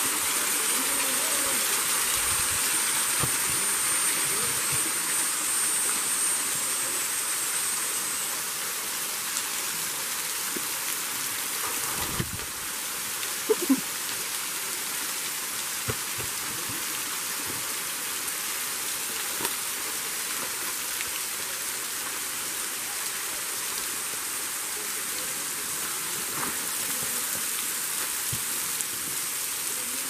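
Waterfall: water pouring down a rock face and splashing, a steady rushing hiss, a little louder at first.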